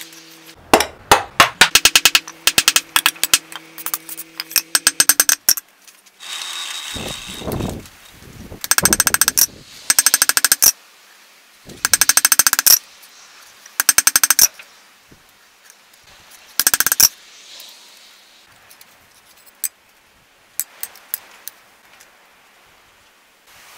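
Hand hammer striking a hot steel seax blade on an anvil in quick runs of blows, with a short metallic ring under the first run. A brief hiss about seven seconds in, then several shorter runs of blows, and only a few light knocks near the end.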